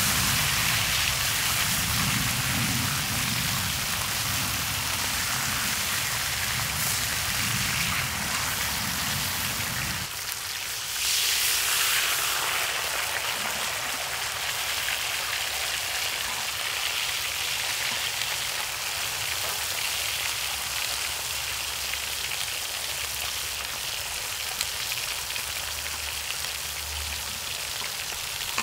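Pork belly sizzling and spitting fat on a hot cast-iron cauldron lid, a steady crackling hiss. A low rumble under it stops about ten seconds in, and the sizzle surges louder briefly a second later.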